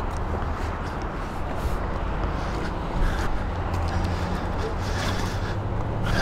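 A motor vehicle engine idling with a steady low hum, with faint scattered clicks over it.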